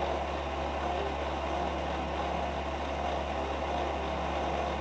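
Metal lathe running steadily at slow speed, turning a hardened-steel crankshaft with a fine cut: a constant low motor hum with a faint steady tone and hiss above it.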